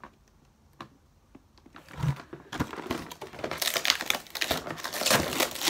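Cardboard packaging and plastic wrapping being handled: a thump about two seconds in, then a run of crinkling and crackling.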